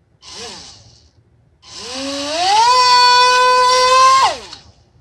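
Small N50 brushed DC motor spinning a 75 mm propeller on a 2S 7.4 V battery: a brief blip of throttle just after the start, then a high whine that climbs in pitch, holds steady for about a second and a half, and winds down near the end as the throttle is cut.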